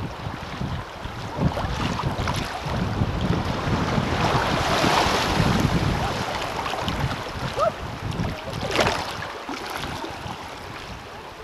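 Kayak paddle strokes splashing and fast river water rushing past the hull, close to the water, with wind buffeting the microphone. There is a sharper splash near the ninth second.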